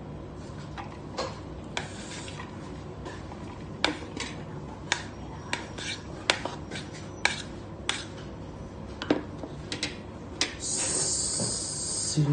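Serving spoon clinking and scraping against plates and a bowl as fried rice is dished out: a string of irregular sharp clicks, with a steady hiss near the end.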